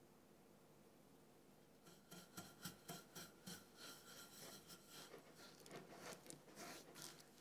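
A metal spoon stirring toasted sesame seeds coated in sugar syrup in a glass baking dish, giving quick, irregular scrapes and clicks against the glass. The stirring starts about two seconds in.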